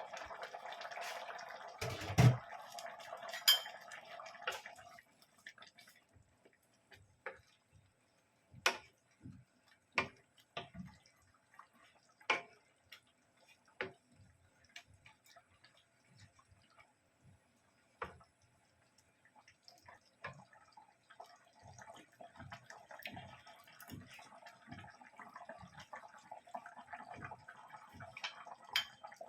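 Kitchen work sounds: a steady rush like running tap water for the first few seconds and again through the last third, with scattered knocks and clinks of dishes and utensils in between. The loudest is a single knock about two seconds in.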